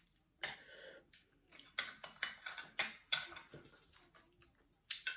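Scattered light clicks and crackles of handling food at the table, about nine of them: a metal spoon and chopsticks working a raw oyster in its shell, then sprigs of fresh greens being picked apart.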